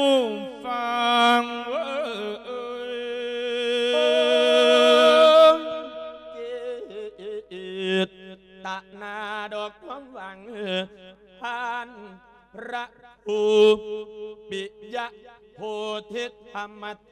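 A Buddhist monk's voice singing lae, the Isan-style sung sermon. He holds one long note that grows louder for a few seconds, then switches to fast, syllable-by-syllable chanting on a few repeated pitches from about six seconds in.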